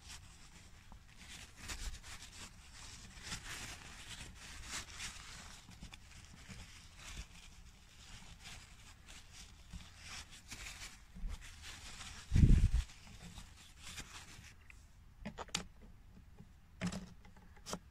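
Paper tissue rustling and rubbing inside a 3D-printed plastic gearbox housing as it is wiped clean, with one louder dull thump about two-thirds of the way through. Near the end, a few sharp plastic clicks as the large gear is fitted onto its shaft.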